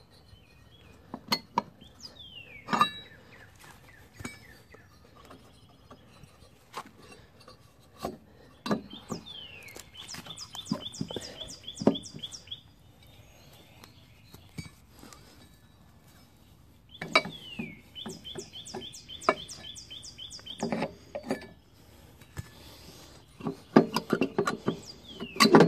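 Metal clinks and knocks from a Toro lawn mower flywheel and its engine parts being handled. Between them, a bird sings several phrases, each a quick downward slur into a fast trill of repeated high notes.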